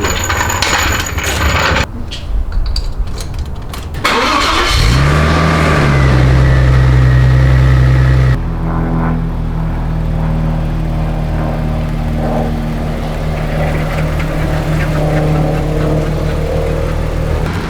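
Audi B5 S4's twin-turbo V6 running in several cut-together clips. About five seconds in the engine note rises and then holds steady. After an abrupt cut about eight seconds in, the engine drones steadily.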